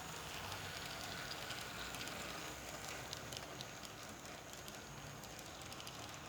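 Steady rain falling, a soft even hiss with scattered faint ticks.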